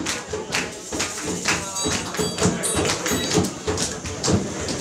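Live band playing with busy hand percussion on congas and timbales, sharp strikes following each other several times a second.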